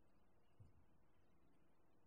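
Near silence: room tone, with one faint low thump about half a second in.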